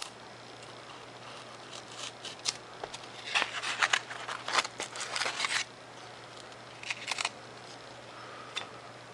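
Razor knife cutting through a sheet of 3mm Depron foam, a run of crisp scratchy crackles, heaviest a few seconds in, with shorter bursts later.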